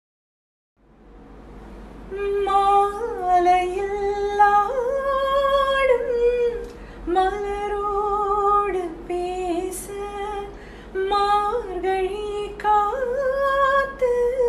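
A woman singing a slow melody with long held, wavering notes, with no instruments, over a faint low hum.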